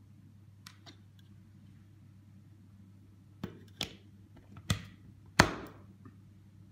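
A plug-in USB charger being pushed into a power-strip socket by hand: a few short clicks and knocks from about three and a half seconds in, the last and loudest near five and a half seconds. A faint steady low hum runs underneath.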